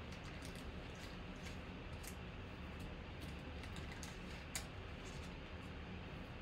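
Trading cards being handled, slid and set down on a tabletop, making faint scattered clicks and ticks, with one sharper tap about four and a half seconds in, over a steady low hum.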